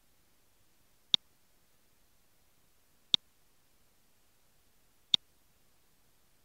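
Three sharp computer mouse clicks, evenly spaced about two seconds apart, over a faint background hiss.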